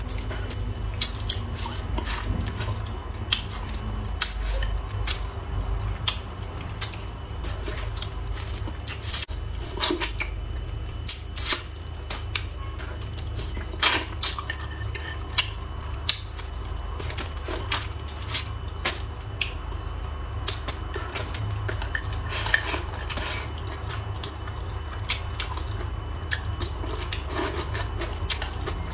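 Eating utensils clinking and tapping against bowls and dishes during a meal: irregular sharp clicks, clustered at times, over a steady low hum.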